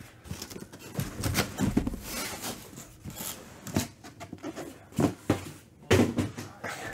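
Cardboard trading-card hobby boxes being lifted out of their cardboard shipping case and set down on a table: irregular scrapes, rustles and light knocks, with a few sharper knocks in the second half.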